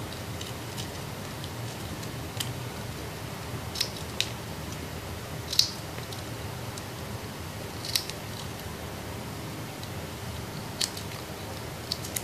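Small spring-action thread snips cutting through strands of shiny satin ribbon: a short, sharp snip every second or two, about seven in all.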